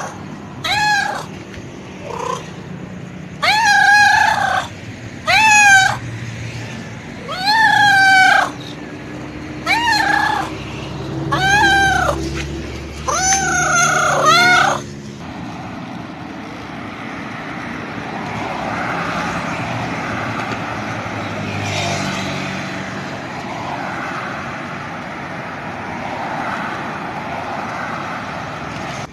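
Stray cat meowing for food, about eight loud meows that rise and fall in pitch, spread over the first fifteen seconds. After that the meowing stops and a steady mechanical drone, like a vehicle engine running, fills the rest.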